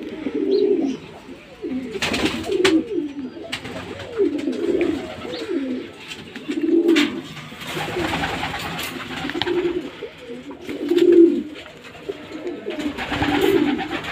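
Several caged white ringneck doves cooing, about ten low rolling coos one after another, with short rustling noises in between.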